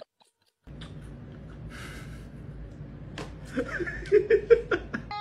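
A person's soft, stifled laughter in short bursts, mixed with clicks, over a low steady hum. A brief rustle comes about two seconds in.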